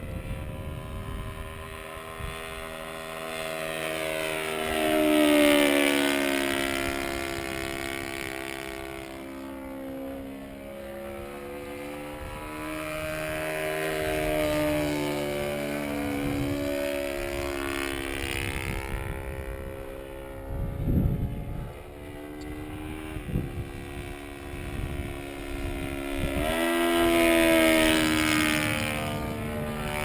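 Glow engine of a radio-controlled Extra 260 aerobatic plane, a YS 120 on a straight pipe, flying passes overhead. Its buzz rises and falls in pitch and loudness with each pass, loudest about five seconds in and near the end. There are a few short low thumps about two-thirds of the way through.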